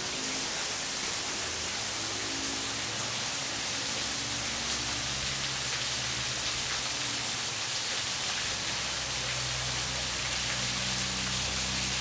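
Steady hiss of a thin waterfall pouring down a cliff face and splashing onto rock, with a faint low hum underneath from about four seconds in.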